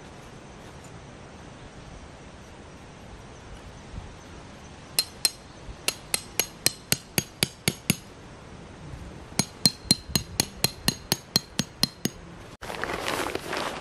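A tent peg being hammered into hard ground: two runs of about a dozen sharp, ringing strikes each, at about four a second, with a short pause between them. A short stretch of louder, even noise follows near the end.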